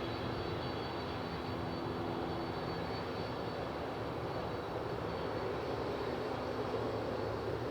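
Boeing 767 twin jet engines running steadily at low power, a broad rush with a thin high whine over it.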